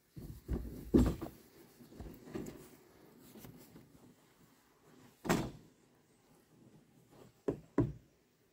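A series of irregular knocks and thumps: a cluster in the first two and a half seconds with the loudest about a second in, another strong one past the middle, and two close together near the end.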